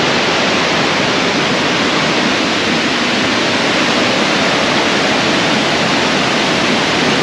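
Steady rush of a fast-flowing rocky jungle stream, the water cascading among boulders.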